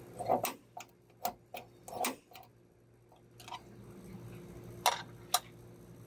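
Light, irregular clicks and taps of pencil and hands against the stainless steel panic bar while screw holes are marked: about nine, unevenly spaced, with the two sharpest a little before the end.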